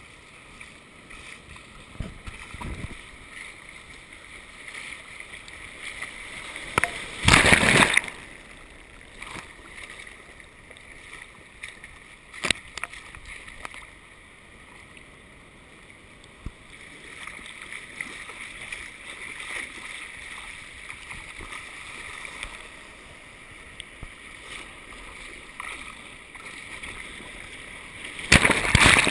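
Shallow surf washing and fizzing around a GoPro in its waterproof housing at the waterline, with two loud splashes: one about seven seconds in, and one near the end as a German Shepherd wades and splashes right up to the camera.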